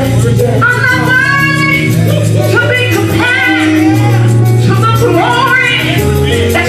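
Live gospel praise music: voices singing over a band, with held bass notes and steady cymbal and drum hits.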